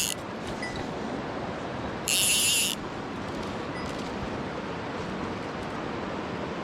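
Mountain stream water rushing steadily. About two seconds in comes a short, high buzz lasting just over half a second.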